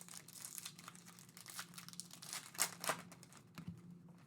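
Trading-card pack wrapping crinkling and tearing in the hands, a run of soft crackles with a few sharper ones about a second and a half and two and a half seconds in, over a faint low hum.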